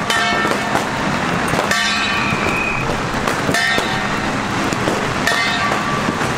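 Strings of firecrackers crackling densely and without pause. A short pitched honk-like blast cuts through about every second and a half.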